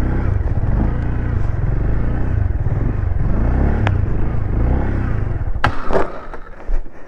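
Riding noise of a bike with heavy low rumble on the microphone, ending in a couple of sharp knocks and a clatter about five and a half seconds in, after which it goes quieter.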